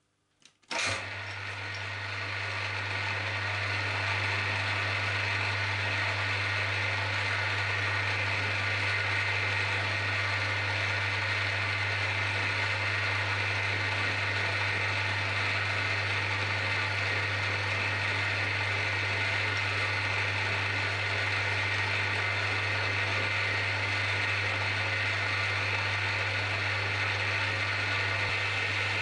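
A 7045 geared-head milling machine starts about a second in and then runs steadily, with a low motor hum and a gear whine from the head, as its spindle turns the cutter over the steel pinion shaft.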